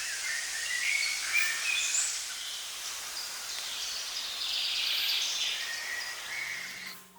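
Outdoor ambience: several small birds chirping and singing over a steady high hiss. A few soft music notes come in near the end.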